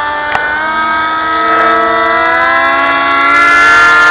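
Motors of two large homemade foam radio-controlled F-22 model jets in flight, whining steadily at two different pitches; one pitch rises between about one and three seconds in as its throttle opens, with a single click shortly after the start.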